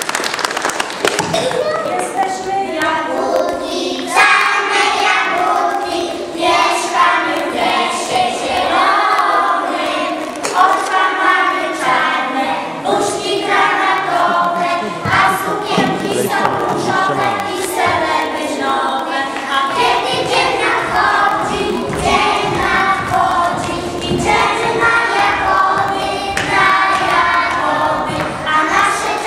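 A group of preschool children singing a song together in unison.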